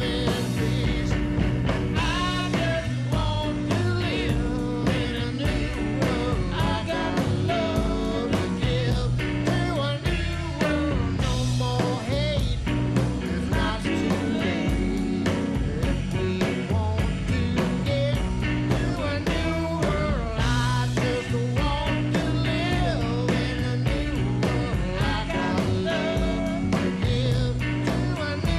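Rockabilly band playing live: electric guitar with bending notes over a steady double bass line and drums.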